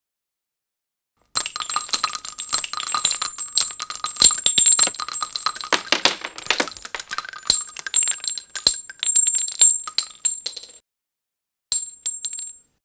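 Many spent .223 rifle casings dropping onto asphalt: a dense run of metallic clinks and ringing pings lasting about nine seconds, thinning out before it stops, then a brief few more clinks near the end.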